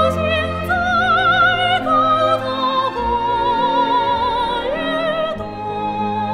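Female operatic soprano singing a Chinese art song in Mandarin over instrumental accompaniment. She holds several high notes with wide vibrato, and the phrase ends about five seconds in while the accompaniment carries on.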